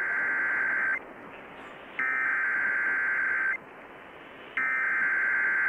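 Emergency Alert System SAME digital data bursts heard over radio static: three buzzy warbling data squawks, each about a second and a half long, with a second of hiss between them. This is the header sent three times that opens a new alert.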